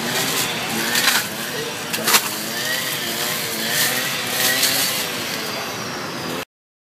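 Petrol brush cutter engine running, its pitch wavering up and down as the throttle is worked, with a few sharp clicks about one and two seconds in. The sound cuts off suddenly near the end.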